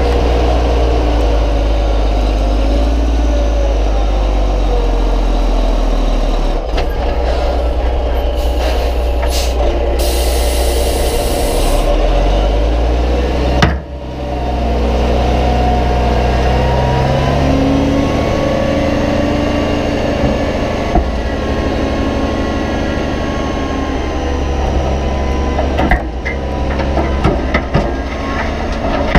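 Loaded dump truck's diesel engine running as it drives, the engine note shifting a few times along the way. A short burst of air hiss comes about ten seconds in, and there is a brief knock and dip in the sound a few seconds later.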